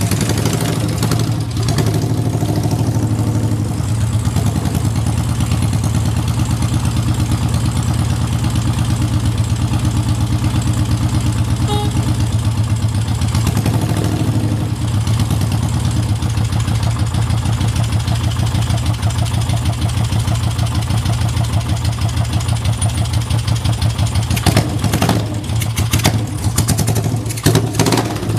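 Yamaha TX650's air-cooled parallel-twin engine idling steadily with no abnormal noise, a sign of a healthy engine. A run of sharp clicks sounds near the end.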